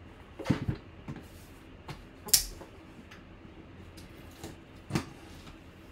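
Scattered clicks and taps from a cardboard box being handled and a folding knife worked at its taped seal, with one sharper, louder scrape a little over two seconds in.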